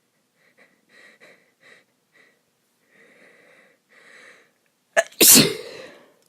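A woman's unstifled sneeze, loud and sudden, about five seconds in. Before it come several quick faint breaths and then two longer breaths in as the sneeze builds. She is sneezing because she is ill.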